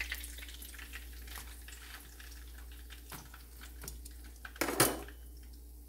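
Faint crackling of hot canola oil left in a wok, with scattered small pops, and a short louder rustle about three-quarters of the way through as fried milkfish is laid on a paper-towel-lined plate with metal tongs.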